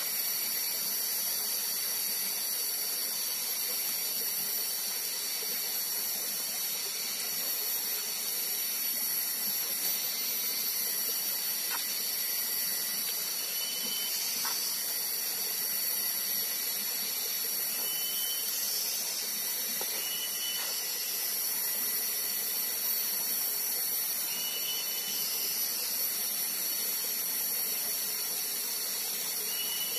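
Tropical forest ambience: a steady high hiss with short chirps that come back every few seconds.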